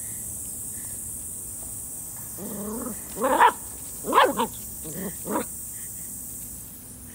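Golden retriever puppy giving four or five short, pitch-bending yelps and whines in the middle, over the steady hiss of a lawn sprinkler's spray.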